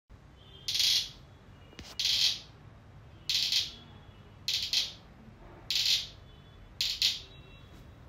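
Homemade cricket noisemaker, a plastic bottle cap strung on a cotton thread, chirping as fingers are pulled down the thread: six short scratchy chirps, like a cricket, about a second apart.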